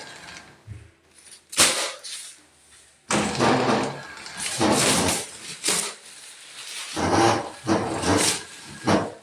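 Paper towel dispenser mechanism with bad bearings, grinding and squealing in several bursts of about a second each as it turns.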